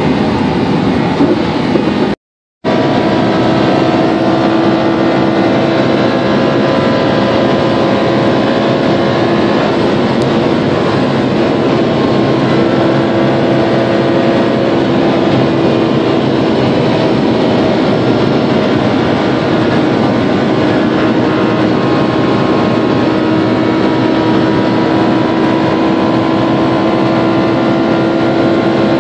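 Lamborghini Huracán's V10 engine droning steadily from inside the cabin at around 320–330 km/h in seventh gear, over a rush of wind and road noise. The sound cuts out completely for a moment about two seconds in.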